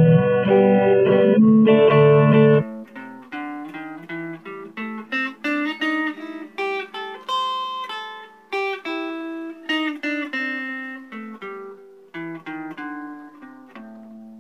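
A loud intro sting of full, sustained chords that cuts off abruptly about two and a half seconds in. Then a Telecaster electric guitar, played through a Boss Katana Mini amp, picks a blues-scale riff one note at a time, ending on a note left to ring.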